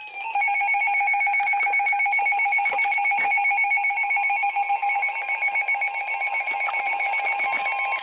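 Weather-alert signalling: a loud electronic alarm that warbles rapidly between fixed pitches. Near the end a steady single-pitch tone comes in faintly, the 1050 Hz NOAA Weather Radio warning tone.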